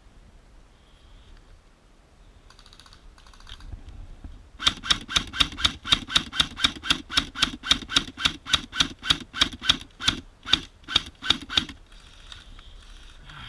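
Airsoft gun firing a steady string of shots, about four a second, for some seven seconds, then stopping.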